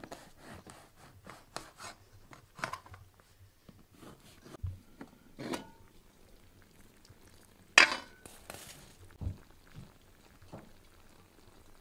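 Scattered clinks and knocks of kitchenware: a knife cutting bread over a metal tray early on, then a glass lid coming off a metal cooking pot with a sharp, briefly ringing clink about eight seconds in, the loudest sound.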